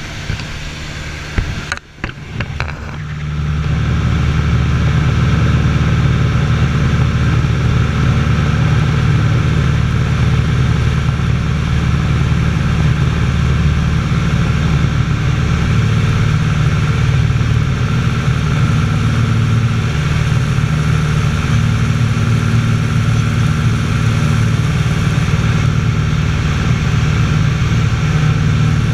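A light aircraft's piston engine and propeller droning steadily inside the cockpit in flight. About two seconds in there are a few brief clicks and a short dip in level, and the drone then holds steady and louder.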